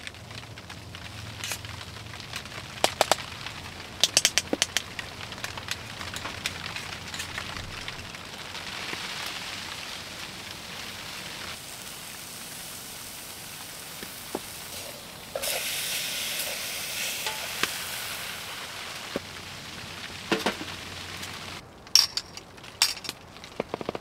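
Cooking over a wood-burning tent stove: a steady hiss of fire and sizzling food, broken by scattered sharp crackles and pops, with a louder stretch of sizzling a little past the middle.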